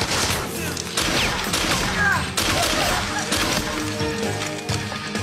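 Repeated gunshots and bullet impacts of a shootout, over action background music that comes forward in the second half.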